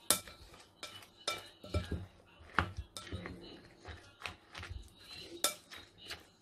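A mixing utensil clinking against a glass bowl as shredded cabbage and egg are stirred together. The clinks are irregular, about two a second, each with a short glassy ring.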